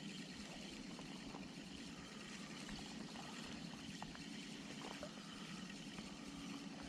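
Steady rush of flowing river water, with a few faint clicks from a Shimano Sephia spinning reel being cranked to retrieve the lure.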